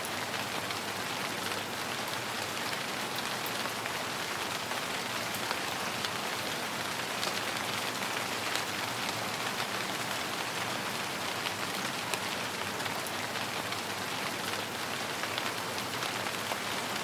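Steady rain falling on a surface, an even hiss with many individual drops ticking through it.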